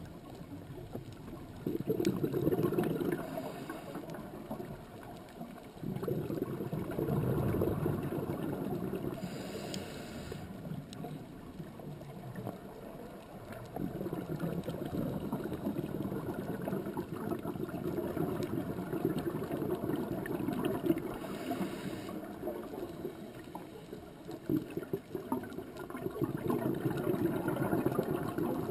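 Muffled water noise heard underwater: a low gurgling rumble that swells and fades every few seconds, with a brief hiss twice.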